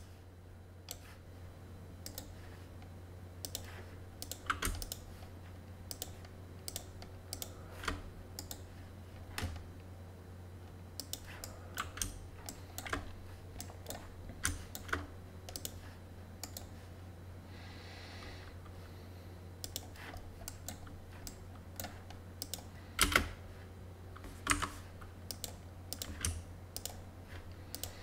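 Irregular clicks of a computer keyboard and mouse as the operator works the 3D modelling software, a few louder near the end, over a steady low hum.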